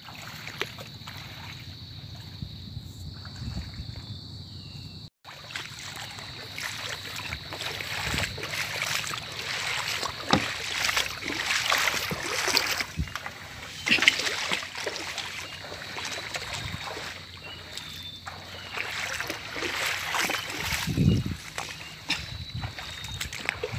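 Splashing footsteps wading through shallow water and mud, irregular and uneven, with a thin steady high tone in the background.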